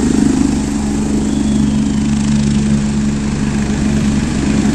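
Light helicopter on the ground with its turbine engine and rotor running: a loud, steady drone with a rapid low rotor beat.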